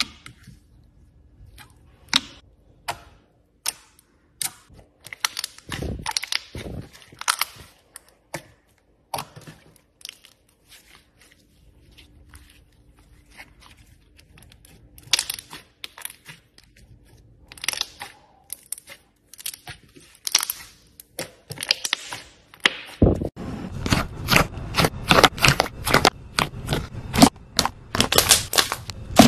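Hands squishing, stretching and folding slime, giving scattered sticky clicks and pops. About 23 seconds in, a thicker slime is pressed and the popping and crackling become denser and louder.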